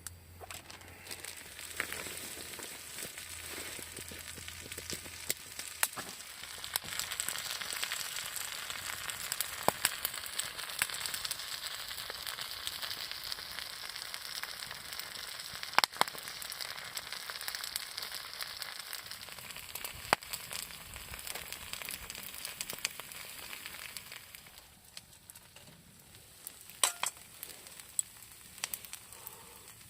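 Food sizzling in a hot pan, a steady hiss with scattered sharp pops and crackles; the sizzle dies down about 25 seconds in, leaving a few pops.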